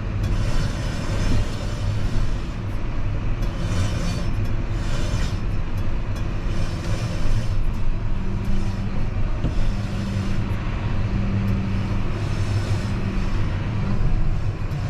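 Tractor engine running steadily, a low rumble.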